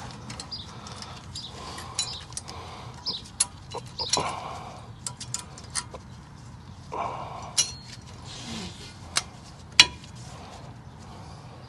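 Steel-backed brake pad being worked into the caliper bracket's metal clips: a run of light metallic clicks and scrapes, with a sharper clack near the end, and brief rustling twice.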